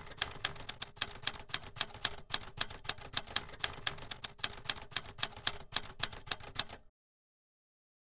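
Typing sound effect: a run of sharp key clicks, about four or five a second, that stops abruptly near the end.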